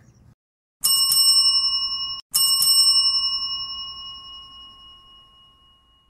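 A bell struck twice, about a second and a half apart, each strike ringing with a clear high tone; the first is cut off short, and the second rings on and fades out slowly over about three seconds.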